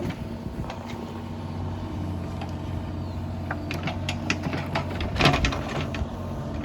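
Mini excavator's engine running steadily, with a cluster of sharp metallic clanks and knocks from the machine in the second half, loudest a little past five seconds in.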